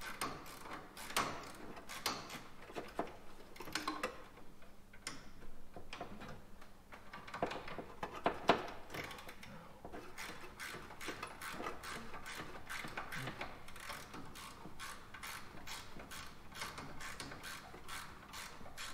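Ratchet wrench clicking as a long 14 mm bolt is wound out, irregular at first, then a fast, even run of clicks.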